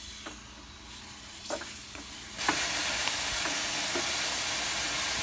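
Pressurised refrigerant from a recharge can hissing through the AC fill hose: a faint hiss with a few light clicks, then about two and a half seconds in a sudden loud, steady hiss. It sounds like refrigerant escaping from a leak in the system.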